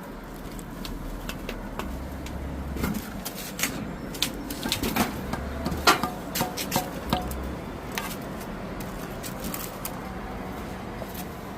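Irregular sharp knocks and clicks, thickest from about three seconds in to past the halfway point, over a steady low rumble.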